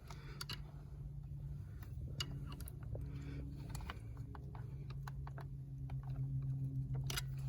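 Scattered small clicks and taps of hands working at the steering-wheel airbag and its connectors, over a faint steady low hum.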